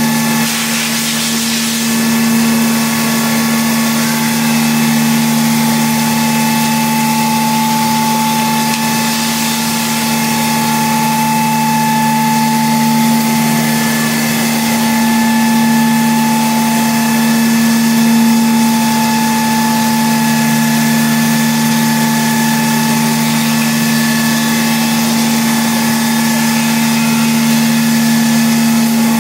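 5-axis CNC milling machine running steadily: a constant machine hum with several steady tones, including a high whine, over a background hiss.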